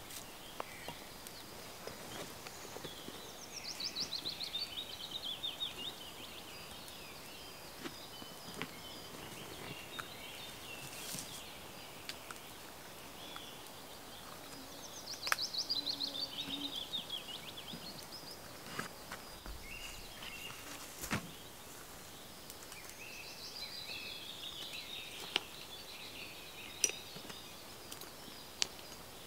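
A songbird sings three phrases roughly ten seconds apart, each a rapid run of notes falling in pitch over about two seconds. Scattered sharp clicks and crackles come from a twig fire burning in a small metal stove.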